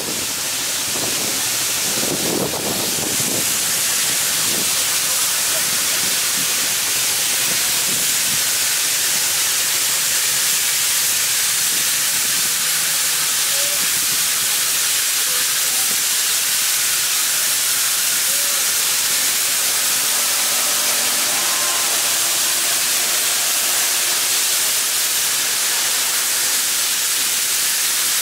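MÁV Class 424 steam locomotive venting steam in a loud, steady hiss, with faint crowd voices behind it.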